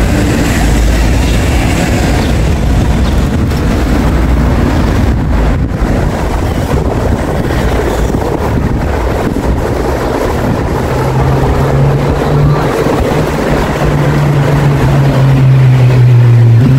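Road traffic noise from a city street, with wind buffeting the microphone. From about two-thirds of the way through, a steady low engine hum from a nearby vehicle joins in.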